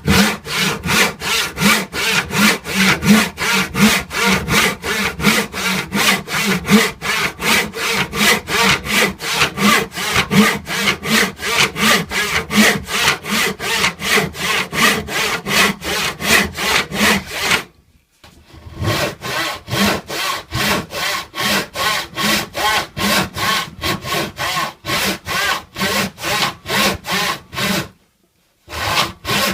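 Hand saw cutting through wood in rapid, even strokes, about three a second, with two brief pauses: one about two-thirds of the way through and one near the end.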